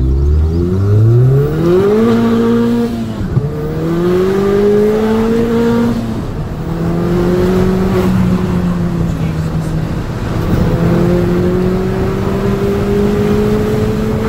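Ford Fiesta ST180's turbocharged 1.6 EcoBoost four-cylinder, breathing through a stainless tubular exhaust manifold, accelerating hard as heard from inside the cabin. The engine note climbs steeply, then changes up three times, each upshift a brief dip in pitch followed by a slower climb.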